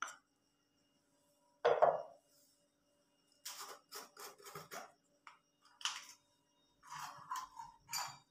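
Kitchen handling sounds: a spoon scraping flour out of a small clay bowl and bowls being set down on the counter, with a run of quick scrapes about halfway through and light clinks of crockery near the end.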